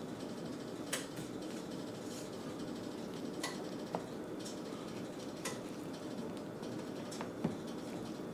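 A utensil stirring a thick flour-and-water batter in a bowl, knocking against the bowl in about six scattered light clicks over a steady low background hum.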